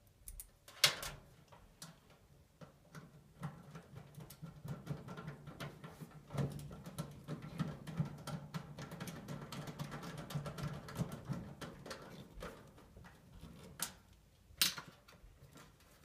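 Small clicks, ticks and rustling of hands handling wiring and connectors inside a furnace cabinet, with a sharper click about a second in and another near the end.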